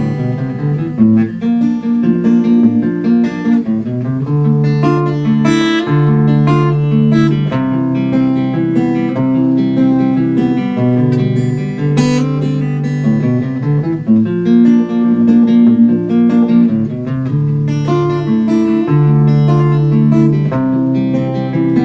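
Acoustic guitar playing an instrumental passage between sung verses of a song, strummed chords ringing on.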